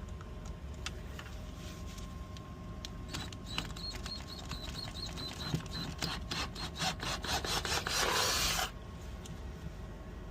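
Metal tools clicking and scraping on a corroded motorcycle gas cap lock, the clicks quickening about two-thirds of the way through. Near the end comes a short, loud rushing burst that cuts off suddenly.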